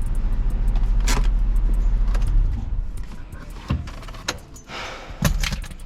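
Low steady rumble of a car that dies away after about two and a half seconds, followed by several sharp clicks and knocks.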